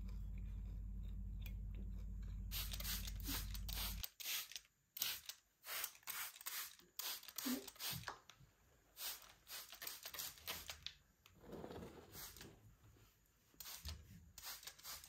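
A trigger spray bottle misting a houseplant's leaves: a long series of short, hissing sprays, one after another. For the first few seconds a steady low hum runs underneath, and it cuts off suddenly about four seconds in.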